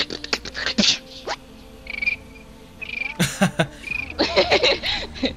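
A woman beatboxing: sharp mouth clicks, short high whistle-like tones, and gliding pitched vocal sounds.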